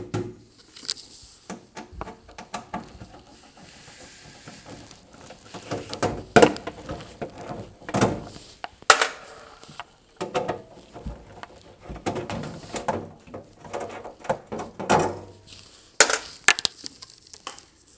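Nut driver removing the 1/4-inch nuts at the top of a refrigerator freezer's evaporator cover panel: scattered clicks, scrapes and knocks of the tool and hand against the panel, with several sharper clicks.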